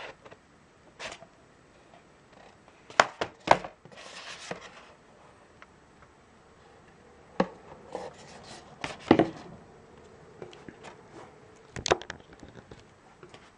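A plastic DVD case and its printed sleeve being handled: several sharp knocks and clicks as they are set down and picked up, with a brief sliding rub between them.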